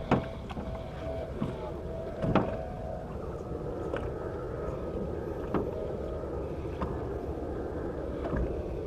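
Motorboat running steadily, a low rumble with water noise, with a few sharp knocks and clicks scattered through it.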